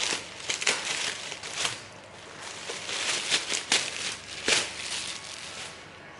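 Packaging crinkling and rustling as it is handled, in irregular bursts with a few sharper crackles, dying down near the end.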